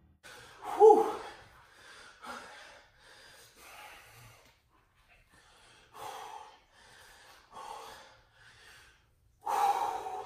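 A man breathing hard and out of breath after a hard exercise set, heavy breaths coming every second or so. A loud voiced gasp about a second in, and another strong breath near the end.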